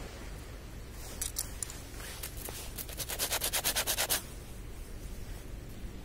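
Knife blade scraping a small piece of cork as it is shaped into a fishing float: a few scattered scrapes, then a quick run of even strokes, about ten a second, lasting just over a second.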